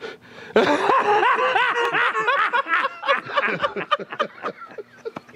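A man laughing hard in quick repeated bursts, tapering off into quieter, sparser chuckles in the second half.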